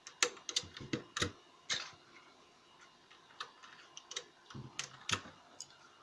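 Plastic keycaps being pulled off and pressed back onto the switches of an MK Disco mechanical keyboard: about a dozen sharp, irregularly spaced clicks, more of them in the first half.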